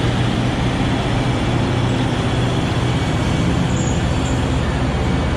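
Steady machine running: a constant low hum with an even hiss over it.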